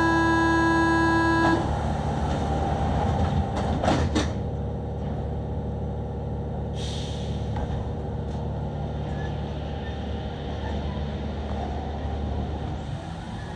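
Rubber-tyred MP05 metro train running through a tunnel, a steady low rumble. A loud, steady horn-like tone with several pitches stops about a second and a half in, a couple of sharp knocks come about four seconds in, and a short hiss about seven seconds in.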